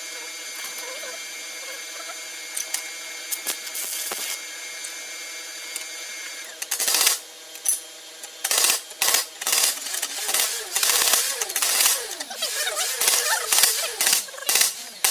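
A steady hum with high tones. From about seven seconds in comes a quick run of sharp scraping and clinking strokes on metal, several a second, louder than the hum.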